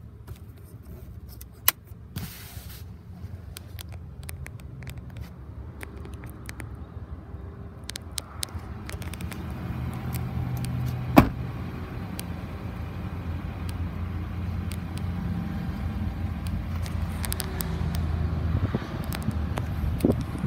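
Pickup truck engine idling in a low, steady hum that grows stronger in the second half, with small handling clicks and one sharp knock about eleven seconds in.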